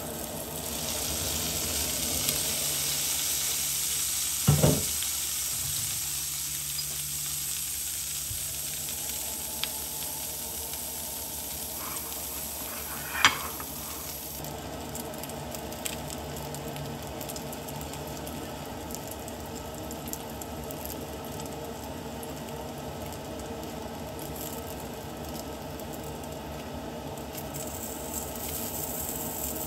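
Food sizzling steadily as it fries in a pan, with a short clink from the pan or a utensil about four seconds in and again about thirteen seconds in.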